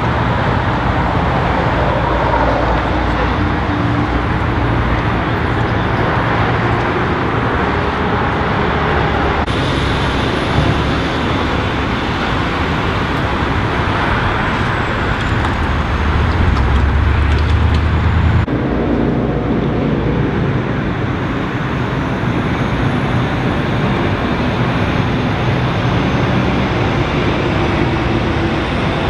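Steady freeway traffic noise: a continuous rumble of vehicle engines and tyres, with a heavier low engine rumble building about two-thirds of the way through. The sound changes abruptly twice, at cuts between shots.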